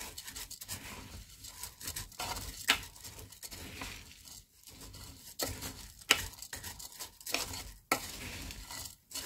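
A wooden spatula stirring soaked rice, beans and grains in the non-stick inner pot of an electric pressure cooker: a steady rustling scrape of grains, with a few sharp clicks through it.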